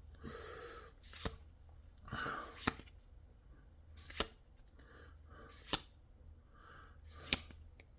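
Magic: The Gathering trading cards being handled one by one as a booster pack is gone through. Each card goes with a short soft rustle and then a sharp tap, about every second and a half.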